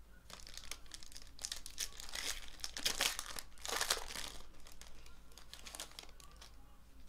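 Foil trading-card pack wrapper being torn open and crinkled by hand, in a run of dense crackling rustles that peaks about three and four seconds in.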